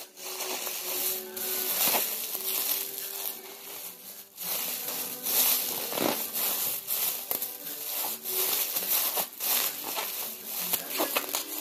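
Plastic bag being crumpled and handled: a busy, irregular crinkling and crackling.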